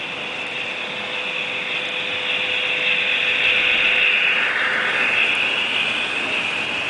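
HO-scale model trains running: a steady whir and rattle of small motors and metal wheels on rail, growing louder to a peak about four seconds in as a train passes close by.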